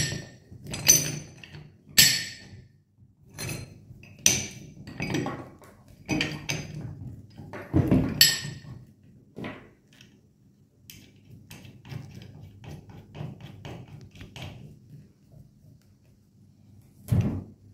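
Metal clinks and knocks as a threaded steel tie rod with its nuts and a metal stretcher plate are handled and fitted onto a flanged rubber bellow joint. Several sharp clinks come in the first eight seconds, then quieter fiddling, and a heavier thump near the end.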